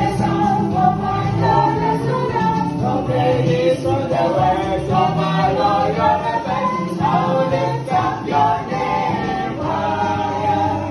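Background music: a choir singing an upbeat song over a steady beat.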